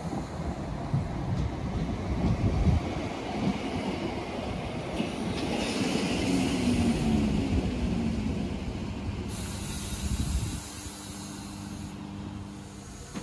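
Class 318 and Class 320 electric multiple units coming to a stop: wheel and motor rumble with a whine that falls in pitch, then a hiss of air about nine seconds in. After that a steady hum holds as the train stands.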